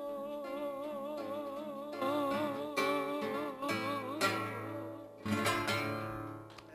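Classical guitar playing the closing phrase of a slow song, with a man's last sung note held with vibrato and fading over the first few seconds. A final strummed chord comes about five seconds in and rings away.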